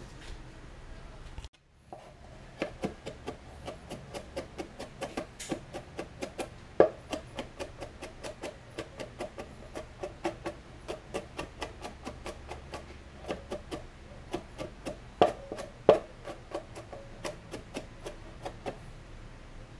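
Knife mincing garlic on a cutting board: a steady run of sharp chops, a few a second, starting about two seconds in, with a few louder strokes along the way.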